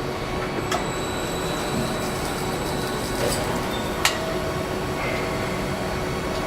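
Car assembly plant floor noise: a steady machinery hum and whir with a faint constant tone, broken by a few sharp clicks and clanks, the loudest about four seconds in.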